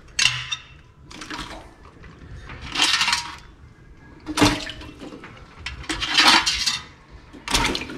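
Boiled blue swimmer crabs being handled in a container of cold water: several short bursts of splashing and of shells knocking against the container, as muck is washed off them.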